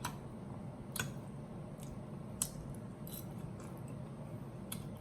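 Quiet eating sounds over a low steady room hum, with three faint sharp clicks spread through, likely cutlery or mouth sounds while chewing.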